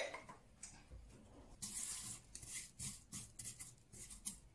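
Thin vermicelli noodles frying in oil in a pan with a faint sizzle, stirred with a spatula in a series of short scraping strokes. A sharp knock sounds right at the start.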